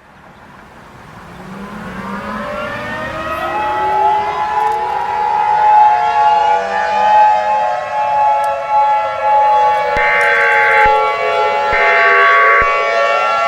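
Several civil-defense sirens winding up together, their pitches rising over about four seconds and then wailing at overlapping, slowly falling pitches around one steady tone. About ten seconds in, two roughly one-second bursts of screeching EAS digital header data sound over the sirens.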